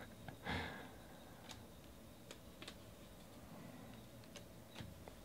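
Faint, scattered clicks of 2019 Panini Donruss Optic baseball cards being thumbed through one at a time in the hands, with a soft brush of card on card about half a second in.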